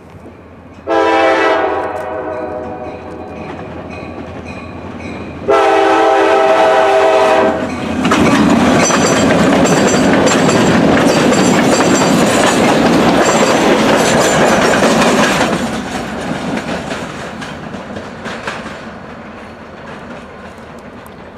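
EMD GP38-2 and GP40-2 diesel locomotives passing at close range. The lead unit's air horn sounds two blasts, a short one about a second in and a longer one about five seconds in. Then the locomotives go by with their engines running and wheels clattering over the rails, and the sound fades over the last few seconds as the passenger cars draw away.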